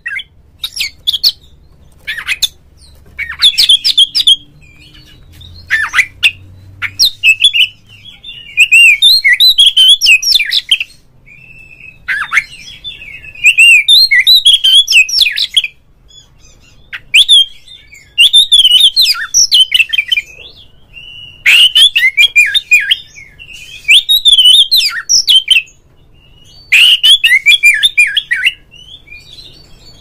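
Oriental magpie-robin singing. A few short sharp calls come in the first several seconds, then loud, rapid, varied whistled phrases about two seconds long, repeated every few seconds.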